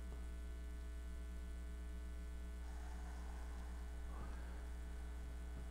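Steady low electrical hum with a row of even overtones from the 12-volt DC gear motor rotor running slowly on its PWM speed controller as it turns the antenna mount.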